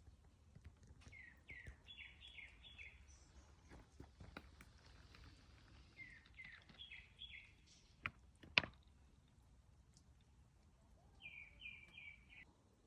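A songbird singing three short phrases of quick, falling notes a few seconds apart, over faint outdoor background noise. Two sharp knocks about eight seconds in are the loudest sounds.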